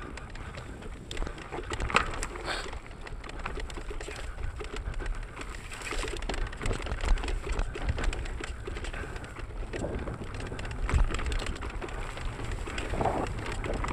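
Mountain bike riding down a rough singletrack: many knocks, clicks and rattles from the bike over bumps, with a steady low rumble of wind on the handlebar camera. A short hoot-like sound comes about two seconds in and another near the end.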